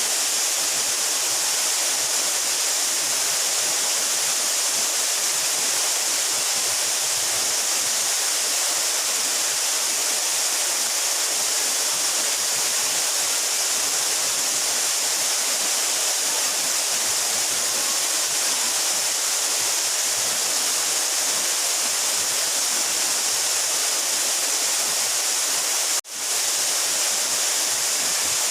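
Mountain waterfall about 12 metres high, its falling water making a steady, full hiss that is strongest in the upper range. The sound drops out for an instant about 26 seconds in.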